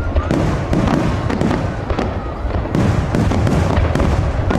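Many aerial firework shells bursting in quick, overlapping succession: a continuous deep rumble of booms with sharp cracks on top.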